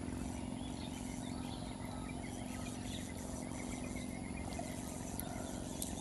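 Steady low outdoor rumble with a constant low hum underneath, and faint bird chirps scattered through it.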